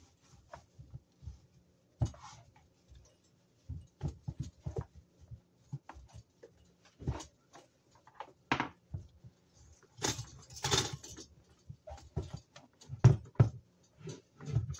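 Cloth rubbing and rustling over a plastic toaster, with irregular light taps and knocks as it is handled. A longer stretch of scrubbing about ten seconds in, then a few heavier thumps near the end as the toaster is tipped up and knocks against the counter.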